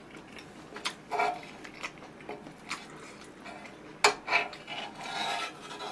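A spoon scraping and tapping across a nonstick grill pan, gathering leftover noodles: a few short scrapes and clicks, the sharpest one about four seconds in.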